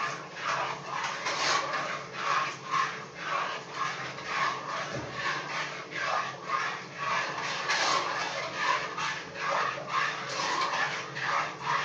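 Rhythmic scraping strokes, about three a second, with a utensil working in a container.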